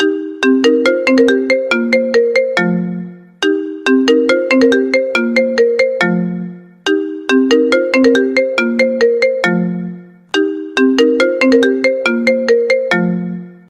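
iPhone ringtone playing: a short melody of quick notes ending on a longer low note, repeated four times about every three and a half seconds.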